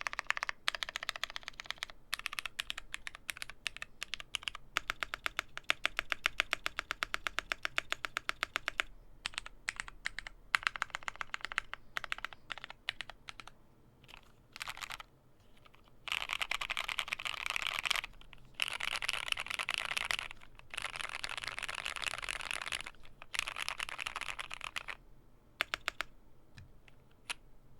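Typing on a Glorious GMMK Pro mechanical keyboard with broken-in Cherry MX Black Hyperglide linear switches, a polycarbonate plate and GMK keycaps. It starts with fast runs of keystrokes, slows to scattered presses, then comes back as several denser bursts of rapid typing before thinning out near the end.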